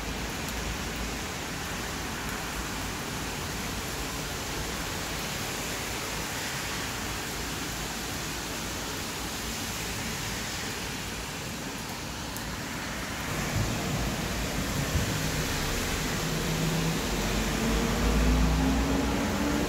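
Steady rain falling with an even hiss. About two-thirds of the way in, a vehicle on the wet road grows louder with a low rumble, its engine note rising near the end.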